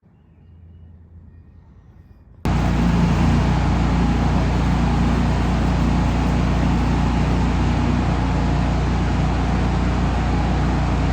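A faint low hum, then about two and a half seconds in a loud, steady engine sound cuts in suddenly and runs on evenly.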